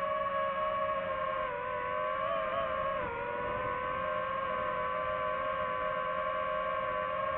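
DJI FPV drone's motors and propellers whining steadily, the pitch dipping and wavering slightly with throttle changes.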